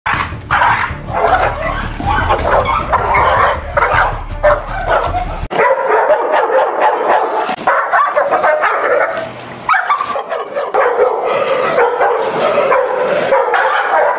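Dogs barking aggressively, one bark hard on the next. A low rumble under the first five seconds cuts off suddenly, where the footage changes.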